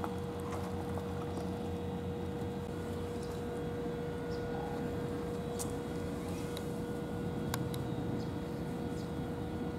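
Steady low machine hum with a constant pitched tone running through it, and a couple of faint clicks past the middle.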